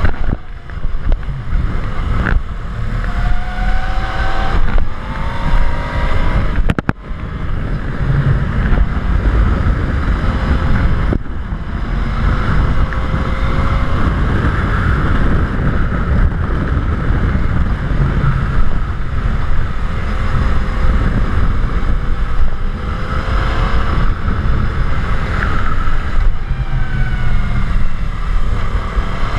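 Motorcycle engine running under way, its pitch rising as it accelerates about two seconds in and again near the end, under heavy wind rumble on the microphone.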